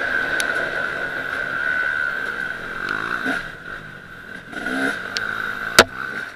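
Off-road dirt bike engine revving up and down as it climbs a dirt trail, fading somewhat in the second half. A single sharp click near the end.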